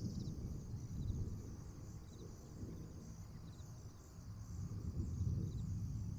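Insects chirring steadily in a high, even drone, with faint short chirps repeating about once a second. A louder, uneven low rumble sits underneath.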